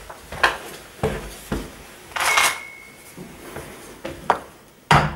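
Clicks and clatter of tools and a wooden block being handled, then sharp knocks near the end as a hammer strikes the wood block held against a metal electrical back box, driving it into the brick wall.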